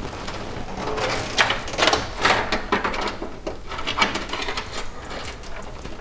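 PC power-supply cables being pulled through a cable-routing cutout in a steel PC case, rubbing and scraping against the case in a series of short rustles.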